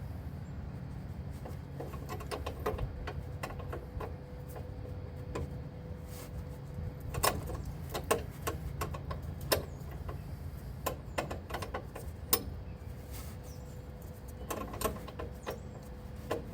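Irregular metallic clicks and taps of a line wrench being fitted and turned on a brake line fitting, over a steady low hum.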